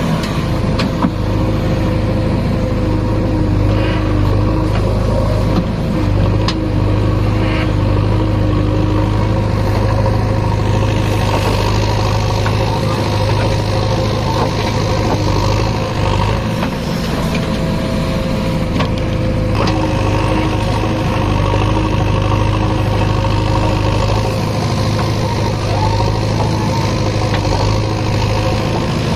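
JCB 3DX backhoe loader's diesel engine running steadily under hydraulic load while it digs and loads, heard from the operator's cab; its note shifts at times, with a few brief knocks.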